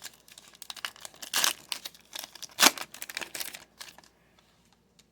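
Foil wrapper of a Topps Chrome baseball card pack being torn open and crinkled by hand: dense crackling with two louder rips in the middle. It stops about a second before the end.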